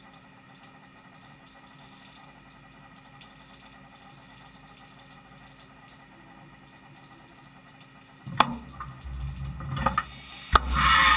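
Fadal VMC5020A CNC vertical mill humming steadily at idle, then starting an automatic tool change: a sharp clunk about two-thirds through as the umbrella carousel tool changer swings in toward the spindle, mechanical rattling, another sharp knock, and a loud rushing hiss near the end.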